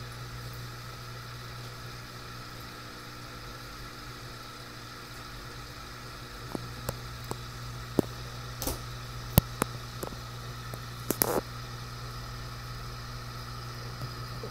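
Aquarium pump humming steadily over bubbling water. A scatter of sharp clicks and taps comes in about halfway through.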